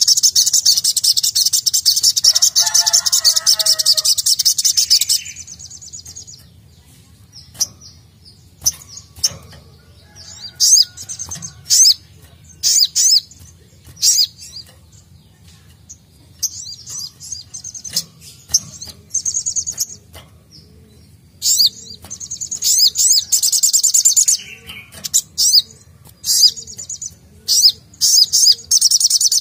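Caged male sunbird (sogon, sogok ontong) singing in rapid, high-pitched trilling phrases: a long unbroken phrase at the start, then shorter bursts every few seconds. Sharp clicks fall between the phrases.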